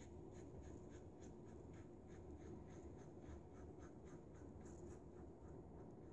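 Faint scraping of an injector razor's single-edge blade cutting stubble through shaving lather, in short repeated strokes about three a second.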